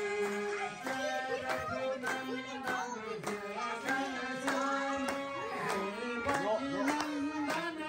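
Live devotional song: voices singing over a harmonium's steady chords, with a beat of sharp strokes about twice a second from hand claps and percussion.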